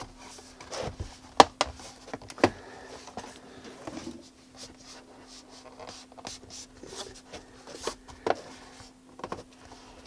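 The snap-in clips of an HP Pavilion 24 all-in-one's back cover clicking into place as the cover is pressed home along its edge. Sharp clicks come one at a time, the loudest two about a second and a half and two and a half seconds in, with lighter clicks later, over a faint steady hum.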